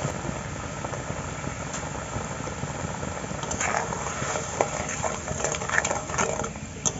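Hog plum chutney boiling in a pan, with a steady bubbling and sizzling as the sugar goes in. From about three and a half seconds in, a metal spatula stirs and scrapes against the pan, giving scattered clicks.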